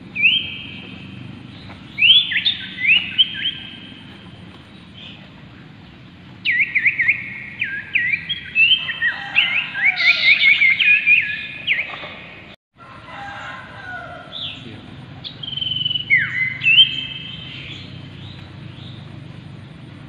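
Common ioras (Aegithina tiphia) calling in short bursts of clear whistles that slide downward. The fastest, densest run of notes comes from about six to twelve seconds in, and a few more whistles follow near the end.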